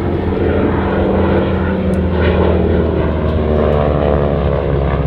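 North American Harvard Mk II trainer's Pratt & Whitney R-1340 Wasp radial engine and propeller droning steadily as the aircraft flies its display.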